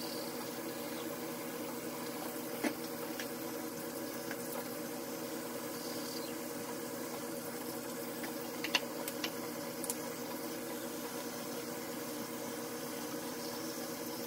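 Steady running water from a bathroom sink tap during tooth-brushing, with a single small knock a few seconds in and a few more just past halfway.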